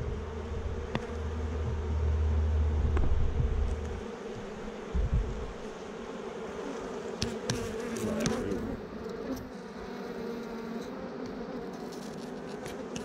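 Honeybees buzzing steadily from an opened hive, with a few sharp clicks and scrapes as a metal hive tool pries a frame loose and it is lifted out. A low rumble over the first four seconds.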